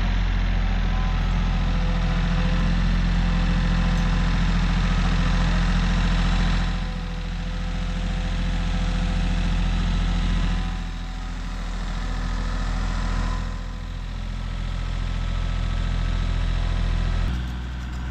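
An engine running steadily at a low, even speed, like idling, dipping in loudness a few times. Its note changes near the end.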